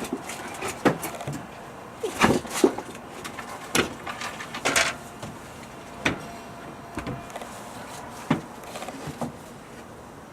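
Irregular knocks and short scrapes of a large OSB board being handled and shifted into place, with a few louder clunks in the first half.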